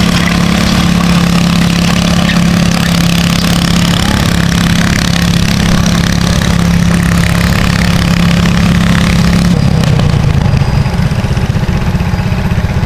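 Cub Cadet garden pulling tractor's single engine running hard through an upright exhaust stack while dragging a weight-transfer sled, a loud steady drone. About ten seconds in the steady note breaks up and the level drops a little.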